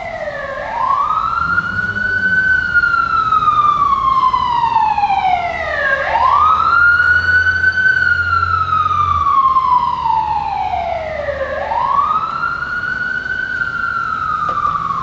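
Fire engine siren in wail mode: a pitch that sweeps slowly up and then down, each rise and fall lasting about five and a half seconds, going through nearly three cycles. A low hum sits under it for the first several seconds.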